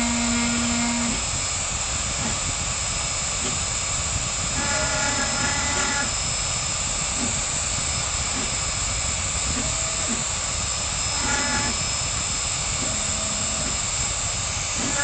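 Hobby CNC router engraving wood: the spindle runs with a steady noise while the stepper motors whine in short spells as the axes move, the pitch changing from one move to the next.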